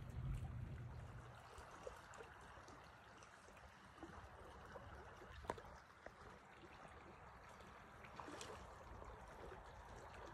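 Faint, steady trickle of a shallow stream running over cobbles, with scattered small ticks and one sharper click about halfway through.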